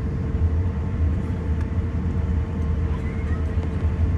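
Airliner cabin noise while rolling on the ground after landing: a steady low rumble from the wheels and engines, with a constant hum running through it.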